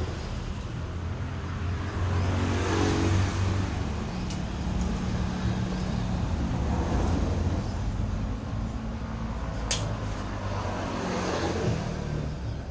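A motor running with a low hum that swells and fades twice, with two sharp clicks.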